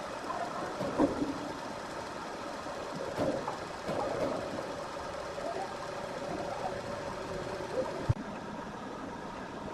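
Sawmill machinery running, with a steady whine through the middle few seconds and sharp knocks about a second in and near the end.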